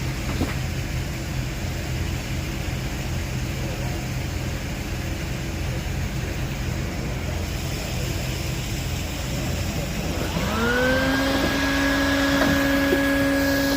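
A vacuum motor starts up about ten seconds in, rising quickly in pitch and then holding a steady whine, over a steady low hum.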